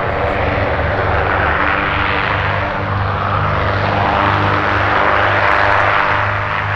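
Cessna O-2A Skymaster's push-pull pair of piston engines running as the aircraft rolls along the runway: a steady propeller drone with a slow, regular pulsing throb.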